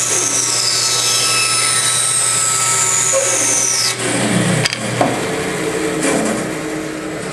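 A 17-inch bandsaw running and cutting wood: a steady motor hum under a high blade whine that falls in pitch, with a sharp knock a little past the middle.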